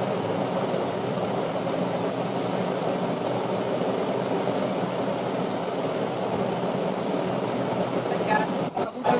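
Sabudana tikkis sizzling steadily in hot oil in a frying pan, as a constant hiss. Near the end the sound cuts out briefly a few times.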